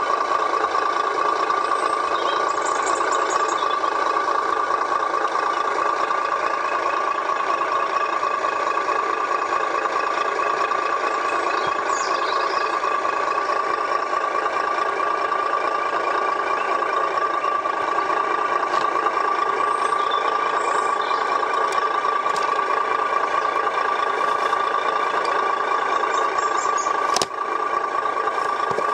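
A Tamiya RC truck's electronic sound unit plays a diesel truck engine running steadily through its small speaker, with a brief click near the end.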